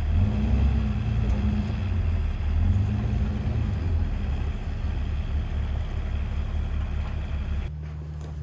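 A vehicle engine running with a deep, uneven drone that rises and falls. Near the end it changes abruptly to a quieter, steadier low hum.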